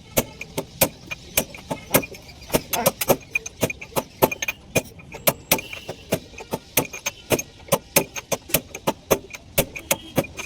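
Sharp metallic clinks and knocks, several a second at an irregular pace, from tools striking and handling metal parts.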